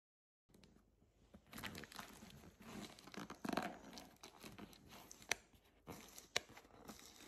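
Paper shopping bags and wrapping rustling and crinkling as they are handled and opened by hand, with a few sharp taps in the second half.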